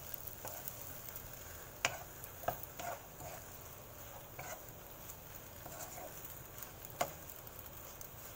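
A wooden spatula stirring Chinese kale in a nonstick wok with a faint sizzle, and a few sharp knocks of the spatula against the pan.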